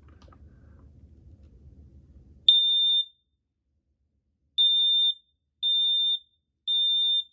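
Kidde PI9000 smoke alarm sounding on test: a single high-pitched beep about two and a half seconds in, a pause, then three more beeps of about half a second each, the start of the temporal-three alarm pattern.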